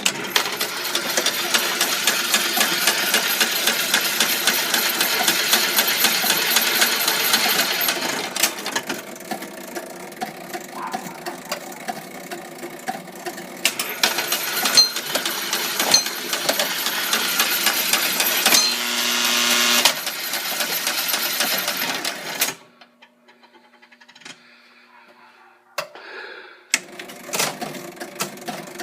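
Pinball machine's motor-driven cam unit running with a dense rapid clicking and whirring, with switches and relays chattering. It runs far too slowly, with the cams jerking, which the owner puts down to bad cam gears or a bad cam shaft. The sound drops in level about a third of the way through, stops for a few seconds near the end, then starts again.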